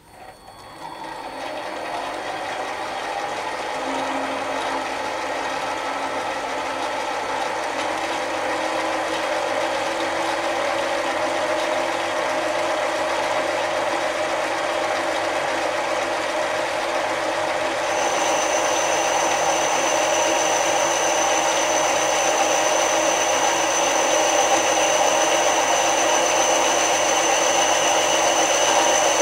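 Mini lathe starting and spinning up over the first couple of seconds, then running steadily with its gear whine while a boring bar cuts inside a cast iron cylinder sleeve. A high steady whine joins a little over halfway through.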